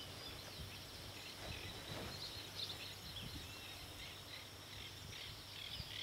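Faint natural ambience with distant birds chirping: short, high calls scattered here and there.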